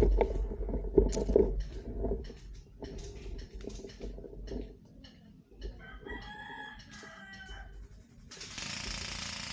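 A rooster crowing once, about six seconds in, for over a second. Before it, rustling and knocking close to the microphone, loudest in the first second or two, and near the end a steady hiss sets in.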